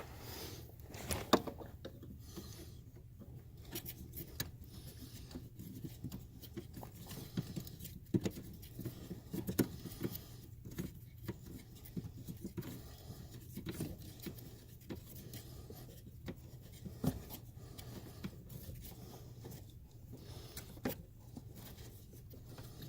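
Scattered light clicks, taps and rubbing from hand work with a wrench on a brake light switch under a car's dashboard, over a steady low hum.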